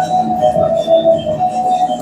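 Cirebonese gamelan music for the topeng mask dance: a held melody line that moves in pitch over repeated percussion strokes.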